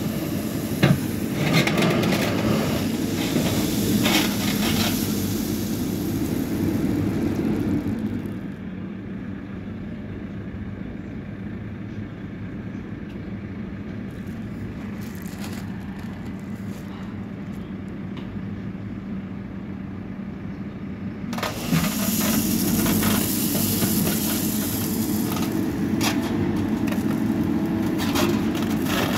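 JCB backhoe loader's diesel engine running under load as the backhoe digs a trench, with scattered knocks and scrapes of the bucket on gravel and stones. It drops quieter for about thirteen seconds in the middle, then picks up again.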